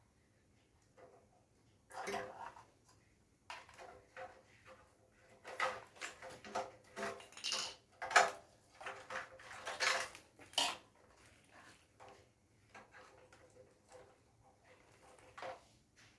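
Small hard parts and tools clinking and clattering in irregular knocks, busiest through the middle of the stretch, as the water heater's parts are handled.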